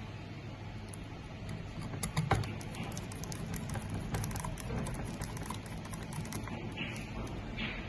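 A quick run of small clicks and taps from hands working on a fusion splicer's parts and plastic housing, with one louder knock about two seconds in and two short scraping rustles near the end, over a steady low hum.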